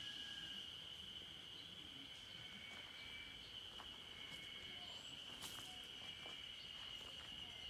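Faint steady high drone of insects, with a few short chirps over it and scattered light crunches of footsteps on gravel, mostly in the second half.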